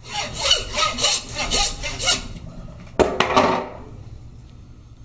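Hand bone saw cutting through lamb bone: about five quick rasping back-and-forth strokes. About three seconds in, a sharp knock and a brief rattle as the metal saw is set down on the wooden butcher block.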